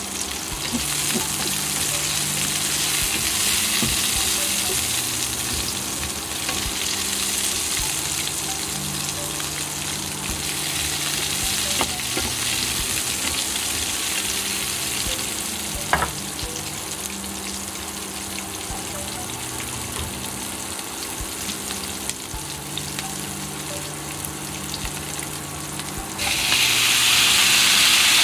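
Onions and garlic sizzling in a nonstick frying pan, stirred now and then with a plastic spatula that clicks against the pan. Near the end raw chicken pieces go in, and the sizzle turns suddenly louder.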